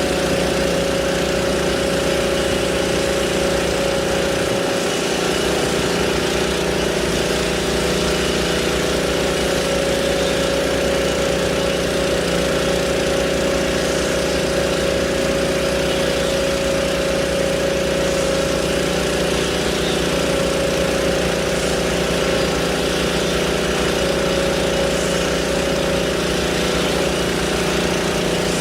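An engine running steadily at idle, holding one even pitch throughout.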